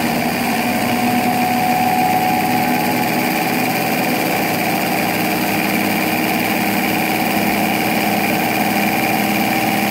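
Sun distributor tester's motor and original belt drive running steadily, spinning a 1967 Oldsmobile 442 distributor, with a steady machine hum and whine. Its pitch edges up slightly as the test speed is slowly raised toward 900 rpm for the centrifugal advance check.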